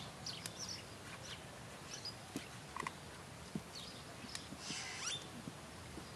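A Belgian Malinois puppy eating food from a hand: faint, scattered chewing and smacking clicks.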